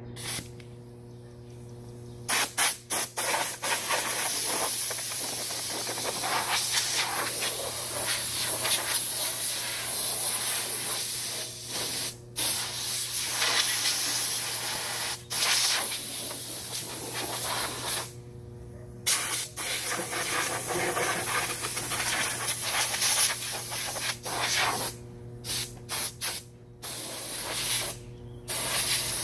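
Compressed air hissing from a blow gun in long blasts with short pauses, starting about two seconds in: blowing the dust off a go-kart before it is painted.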